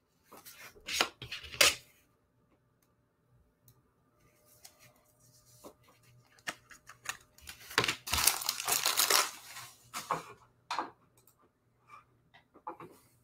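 Trading cards and their plastic sleeves being handled, with short rustles and clicks. About eight seconds in comes a couple of seconds of loud tearing and crinkling of card packaging.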